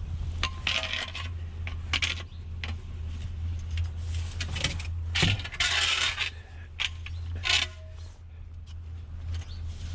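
Pieces of scrap metal clanking and scraping as they are handled, a string of sharp knocks, a few of them ringing briefly. A steady low hum runs underneath.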